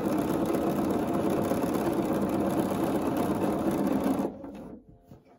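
Bernina sewing machine stitching a seam through two layers of cotton quilting fabric, running steadily, then stopping about four seconds in.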